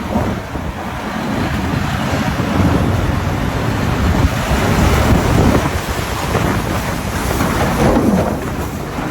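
Storm sounds: heavy wind and rain with a continuous rumble of thunder, swelling in the middle and again near the end.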